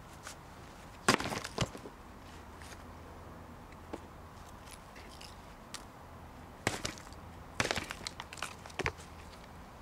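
Broken sandstone rubble tipped out onto the ground with a clatter about a second in, then pieces of smashed stone clacking against each other in two clusters of knocks near the end as they are handled.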